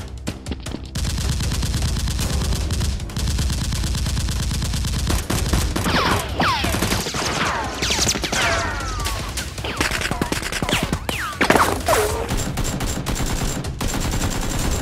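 Rapid automatic gunfire, a dense fusillade of shots fired in quick succession, laid over a Nerf battle as sound effects. Several falling whistling sounds cut through the firing in the middle.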